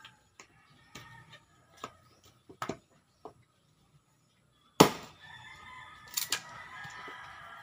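Axe chopping firewood on a log: a few light knocks, then one heavy chop about five seconds in. A rooster crows right after the heavy chop.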